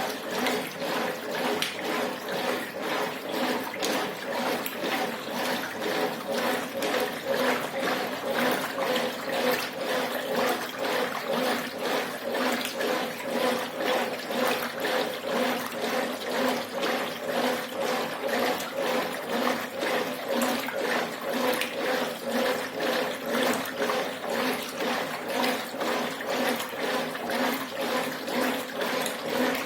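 Brastemp Ative 11 kg top-load washing machine agitating a load with its Dual Action agitator: water and laundry sloshing back and forth in a steady, even rhythm over the hum of the motor.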